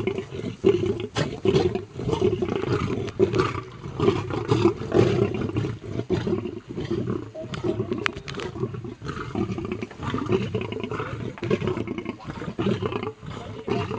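Lions making low, rough calls over raw meat at feeding time, swelling and fading in loudness without pause.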